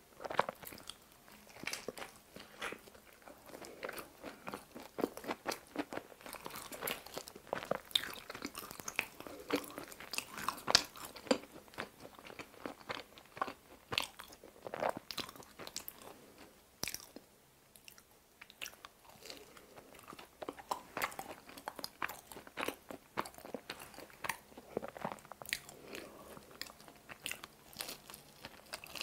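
Close-miked chewing and biting of pizza: irregular sharp crunches from the crisp crust and edge, mixed with wet mouth sounds, with a short pause in the chewing a little past halfway.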